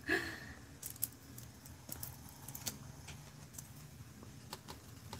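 Faint scattered ticks and light rattling of fine glitter being shaken and tipped on a folded paper plate.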